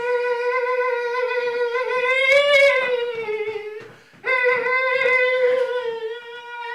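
A single voice holding two long, high, steady notes, broken by a short gap of about half a second a little before the middle, with a slight rise in pitch partway through the first note.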